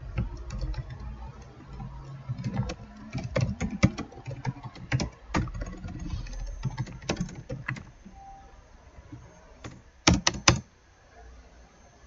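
Typing on a computer keyboard: irregular key clicks for about eight seconds, then a quick cluster of louder keystrokes about ten seconds in.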